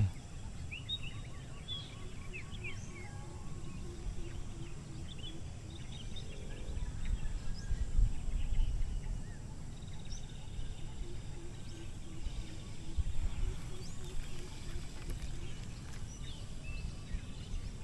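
Outdoor rural ambience: several birds chirping and calling, short high notes scattered throughout, with a faint run of quickly repeated low calls that comes and goes. Wind gusts rumble on the microphone, strongest about eight seconds in.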